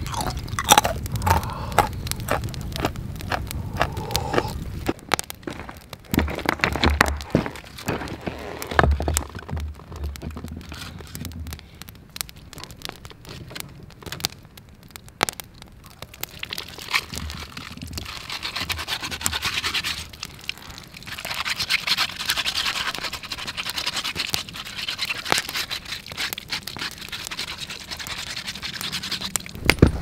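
A flat stone being washed and scrubbed, heard as a rough, steady scraping hiss in the second half. Before it come scattered small knocks and crackles.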